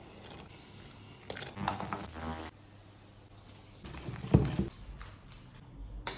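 Cooking sounds from a frying pan of butter and sage leaves in liquid on the hob: a short buzzy rasp about two seconds in, then a sharp knock a little after four seconds, the loudest sound, with a few lighter clicks around it.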